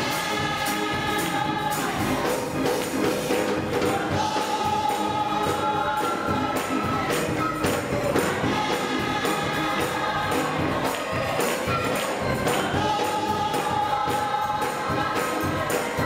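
Gospel choir singing in harmony, holding long chords, over a steady beat of handclaps and jingling percussion.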